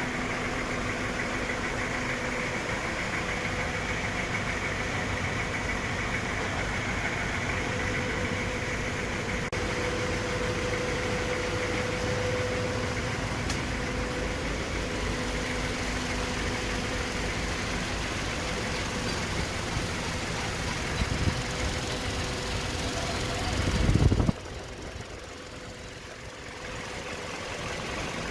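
Toyota 2TR 2.7-litre inline four-cylinder petrol engine idling steadily. About 24 seconds in, a brief louder surge ends in an abrupt cut, leaving a quieter background noise.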